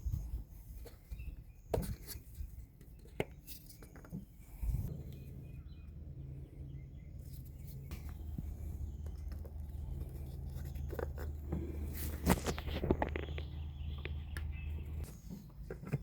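Scattered clicks and knocks of handling, then a steady low mechanical hum that starts suddenly about five seconds in and cuts off shortly before the end, with a few knocks over it.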